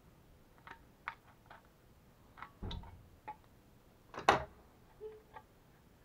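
Tin snips cutting thin brass sheet: a string of short, separate snips and clicks, about nine in all, the loudest one a little past four seconds in.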